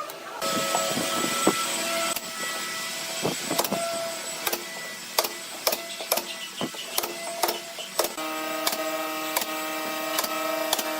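A small motor whining steadily, louder about eight seconds in, with irregular sharp clicks and knocks of wood being worked.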